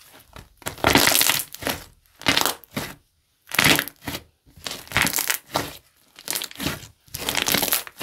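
Thick pink slime squeezed and pressed by hand, giving crackling squishes in about six or seven separate presses, roughly one a second.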